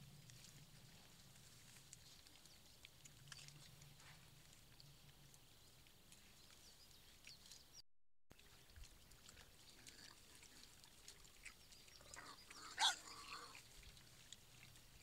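Wild boar sow and piglets foraging in wet ground: faint scattered rustling and ticking, with one short high squeal from a piglet near the end.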